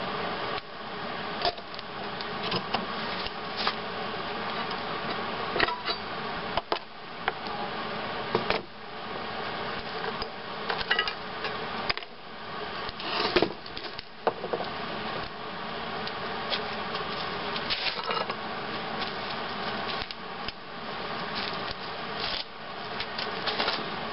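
Steel bracket and pipe parts being handled and set in place on a plywood bench: irregular knocks and clanks of metal, a few of them sharp, over a steady hum.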